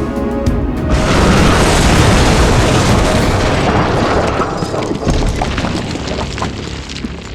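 Explosion sound effect over background music: a sudden loud blast about a second in that fades away over several seconds.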